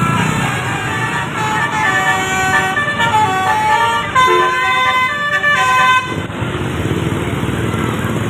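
Bus telolet horn of the 'basuri' type playing a tune of short stepped notes, cutting off suddenly about six seconds in, over the low running of the bus.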